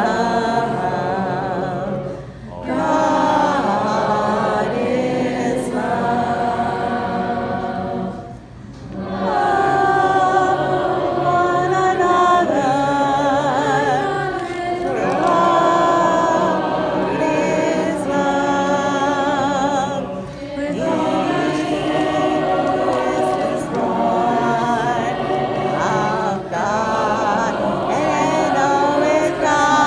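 A group of many voices singing together in unison, like a choir, with short breaks between phrases.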